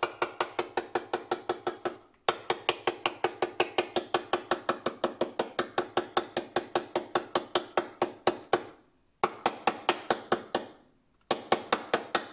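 Plastic funnel knocked rapidly against the neck of a small glass bottle, about five hollow knocks a second, to work aloe vera down into the bottle. The knocking breaks off briefly about two seconds in and twice more near the end.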